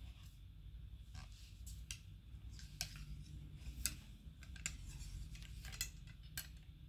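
Metal ramrod pushing a sabot-seated bullet down a muzzle loader's barrel: faint, irregular light clicks and knocks of the rod against the bore and muzzle, about once or twice a second, over a low hum.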